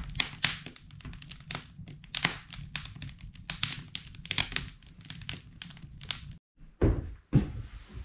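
Wood fire crackling and popping in an open cast-iron fireplace, irregular sharp snaps over a steady low rumble. Near the end the crackling cuts off and a few dull thumps follow.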